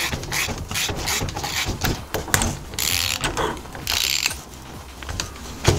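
A small tubing cutter being turned around the steel shell of an oxygen sensor: its cutting wheel scrapes and clicks against the metal in a run of irregular strokes, with two longer rasping scrapes in the middle.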